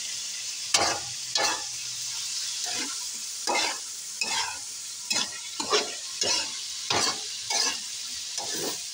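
Meat frying in a metal wok, sizzling steadily, while a metal ladle scrapes and stirs it in short strokes about once or twice a second.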